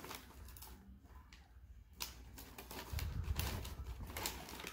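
Small clicks and rustles of a boxed plastic toy and its cardboard packaging being handled among paper packing. They are sparse at first and become a busy run of clicks and knocks from about two seconds in.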